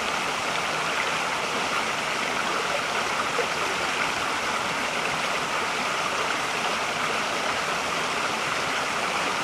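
Mountain stream water rushing and burbling steadily over rocks.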